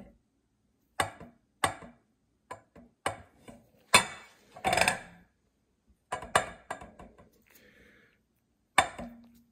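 Chrome motorcycle handlebar knocking and clicking against a stone countertop as it is pressed and rocked at the riser point to check it for a bend. There are about ten sharp taps at uneven spacing.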